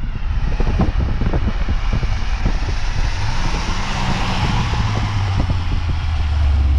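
Cabin noise of a BMW 335xi's turbocharged 3.0-litre inline-six accelerating hard, with steady wind and road noise. A low engine drone grows louder over the last couple of seconds.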